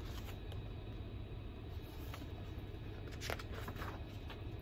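Quiet room tone with a steady low hum, and a few faint rustles and taps from a hardcover picture book being held up and lowered.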